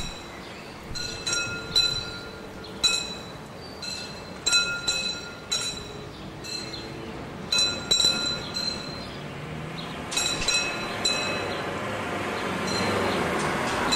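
Level-crossing warning bell ringing in irregular groups of strokes while the full barriers come down, falling silent once they are lowered. Near the end the noise of an approaching train begins to rise.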